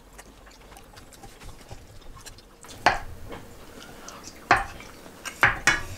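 A wooden spoon and chopsticks mash boiled eggs into thick tteokbokki sauce in a metal frying pan, with wet stirring. The utensils give a few sharp clicks on the pan from about three seconds in.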